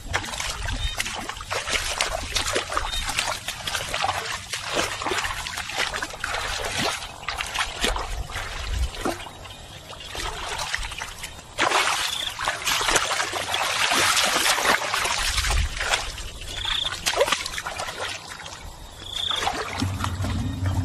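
Water splashing and trickling, with many small irregular splashes. It grows busier and louder about halfway through.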